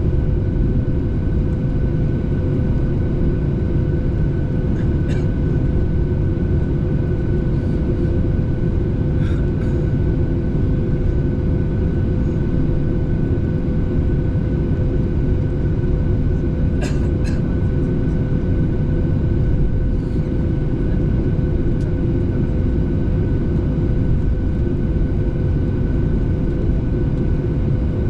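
Steady passenger-airliner cabin noise: a dense low rumble of engines and airflow with a constant hum and a fainter higher tone over it, and a few faint clicks.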